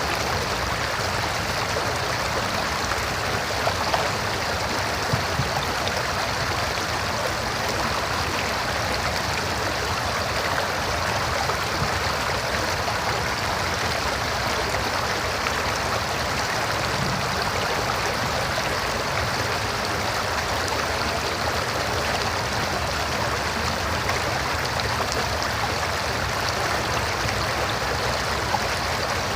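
River water flowing steadily over rocks, a continuous rushing with small splashes and gurgles.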